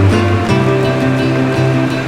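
Background music: a steady instrumental track with a regular beat and held bass notes.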